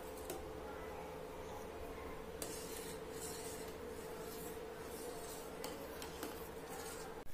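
Faint scraping of a long steel spoon stirring milk in a stainless steel pot, with a few light clicks of metal on metal, as the milk is cooked down to reduce. A faint steady hum runs underneath.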